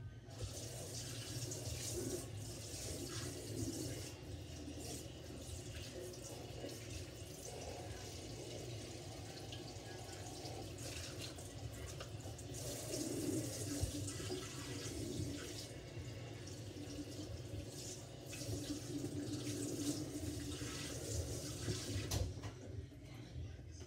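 Water running from a kitchen faucet's pull-down sprayer into a stainless steel sink as dishes are rinsed under it, with a few sharp knocks.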